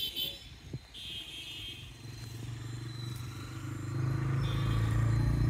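A motor engine running with a low steady hum, growing louder over the last few seconds.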